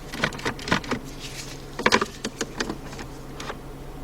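Irregular plastic clicks and rattles from the automatic gear shifter assembly being worked by hand, over a steady low hum. A piece inside the shifter that should move when the lever is pushed sideways stays put: the shifter is broken inside.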